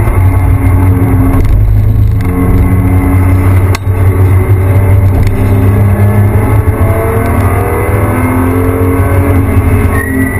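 Porsche 911 GT3 RS flat-six engine under hard acceleration, heard inside the cabin: its pitch climbs several times through the gears, with brief breaks at the shifts, over a steady low rumble.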